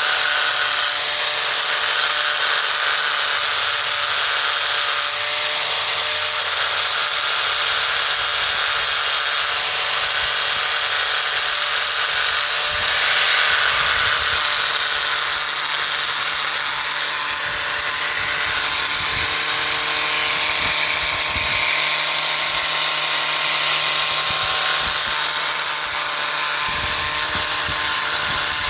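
Power grinder running steadily, grinding a flat onto the side of a wheel stud's head so that the stud can be fitted past the hub. A constant motor whine with a hiss of metal grinding runs under it.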